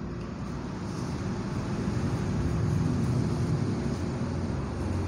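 Low rumble with a faint steady hum underneath, swelling somewhat about two to three seconds in; no speech.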